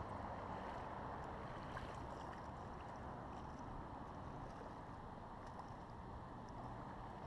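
Steady rush of flowing river water, with faint light splashes from a hooked fish thrashing at the surface.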